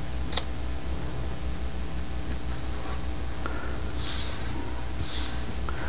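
Hands rubbing blue painter's tape down flat onto a cutting mat: a click about half a second in, then three soft brushing swipes over the tape, with a steady low hum underneath.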